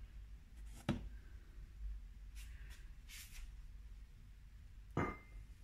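Quiet handling noises as a glass bottle is set aside and a cardboard box is handled: a sharp knock about a second in, soft rustling in the middle, and another knock with a short ring near the end.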